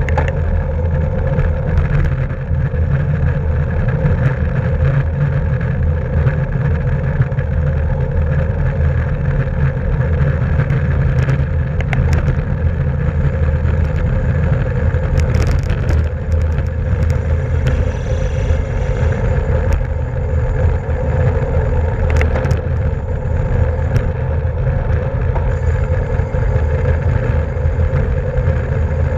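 Steady wind rush and road noise on a camera riding on a racing bicycle at speed, with a few brief clicks.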